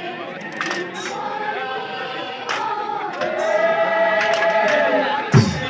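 Many voices singing together in a traditional rati bihu song, with a long held note from about three seconds in. A sharp thump comes near the end.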